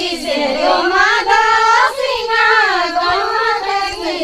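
A woman singing a Garhwali folk song, drawing out long notes that glide up and down between lines of lyrics.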